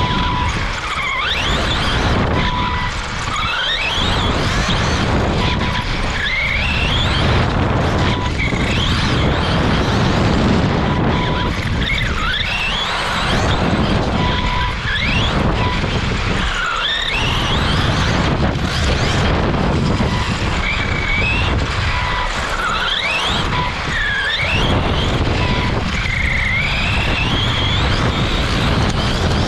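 Onboard sound of a Tekno EB48 2.0 1/8-scale electric RC buggy at racing speed on a dirt track. The brushless motor and drivetrain whine rises in pitch again and again as it accelerates, then drops away into the corners, over a steady rush and rattle of tyres and chassis on loose dirt. A short beep repeats about once a second underneath.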